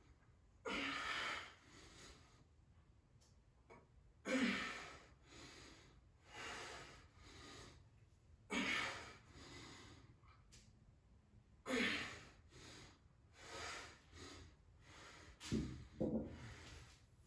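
A man breathing hard under exertion during a kettlebell exercise: forceful exhales about every two seconds, several starting with a short grunt. A low thud comes near the end as the kettlebell is set down on the mat.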